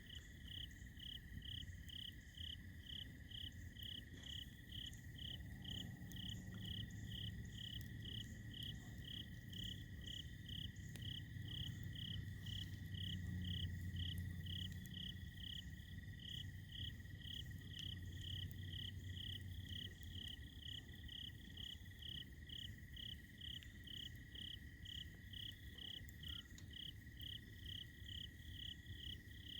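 Night insects, crickets chirping at an even pulse of about one and a half chirps a second, over a steady unbroken trill from other insects. A low rumble swells in the middle and fades.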